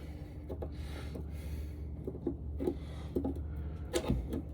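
Scattered light knocks, clicks and rubbing as engine parts are handled and worked loose by hand, over a steady low hum.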